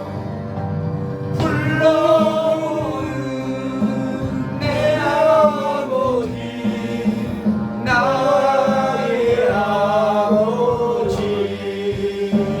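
A slow worship song: a voice sings long, drawn-out notes over instrumental backing, in several phrases with short breaks.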